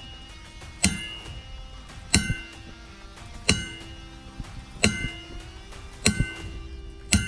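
Hammer blows on a prop knocker (harmonic puller) threaded onto a boat's propeller shaft: six evenly spaced strikes about 1.3 s apart, each a metallic clang that rings on. The blows are meant to shock the propeller loose from the shaft, but they are too light to free it.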